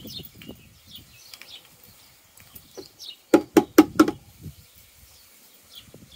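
Coolant glugging out of a one-gallon plastic jug as it is poured into a Mazda MX-5's coolant bottle: four quick glugs a little past halfway through as air gulps back into the jug.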